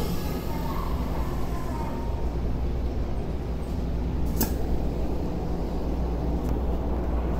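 Inside a Tokyo Metro 16000 series train car standing at a platform with its doors shut: a steady low hum, with a single sharp click a little over halfway through.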